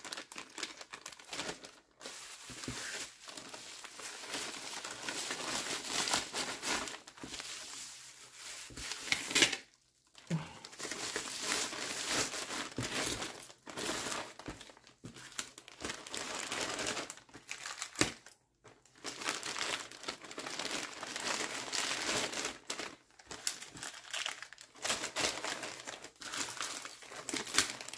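Bubble wrap and small plastic bead bags crinkling and rustling as they are handled and unwrapped, in irregular spurts, with two brief pauses, about ten and eighteen seconds in.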